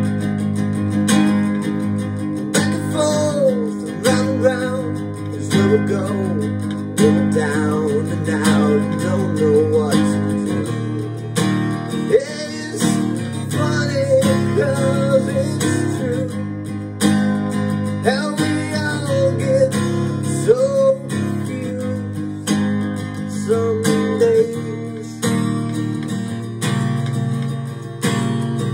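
A recorded song playing back: strummed acoustic guitar keeps a steady rhythm under a wavering melody line.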